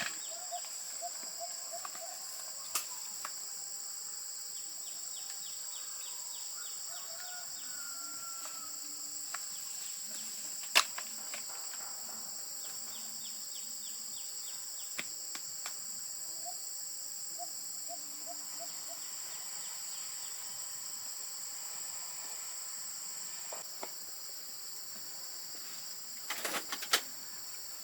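Steady high-pitched chorus of insects, with short faint bird calls and runs of rapid ticking here and there. A few sharp clicks or knocks stand out, the loudest about eleven seconds in and a small cluster near the end.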